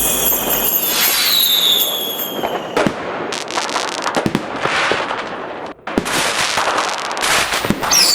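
Fireworks: a whistling rocket with a falling pitch about a second in, then a dense string of sharp crackling pops and bangs, firecracker-style, with a brief break near six seconds.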